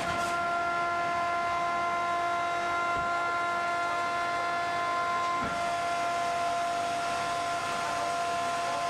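Car baler's hydraulic power unit whining steadily, several high tones held level, as the machine swings its hinged steel lid up. A couple of faint knocks come about 3 and 5.5 seconds in.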